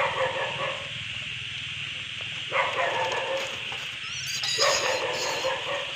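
An animal calling three times, each call about a second long and roughly two seconds apart, over a steady high hiss.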